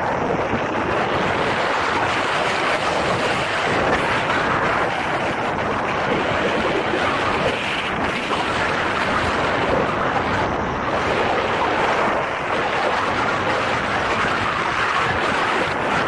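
Steady, loud rush of wind across an Insta360 action camera's microphone, caused by the airflow of paragliding flight.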